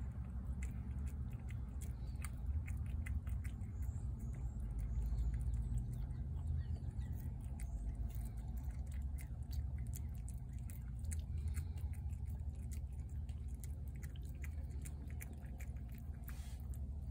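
Cat chewing wet food from a plate: many quick, wet clicks of chewing and licking throughout, over a steady low rumble.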